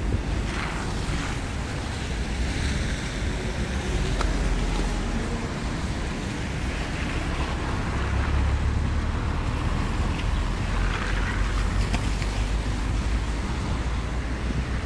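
Wind buffeting the microphone: a low rumble that swells and eases every few seconds, over a steady hiss of city street ambience.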